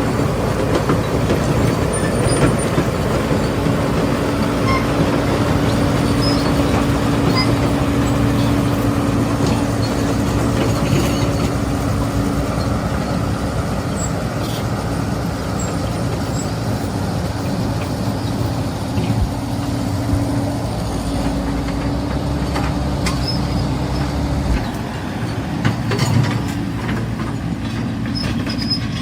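Caterpillar 395 hydraulic excavator working: a steady low diesel drone with a held whine that stops near the end, and scattered metallic clanks and squeaks.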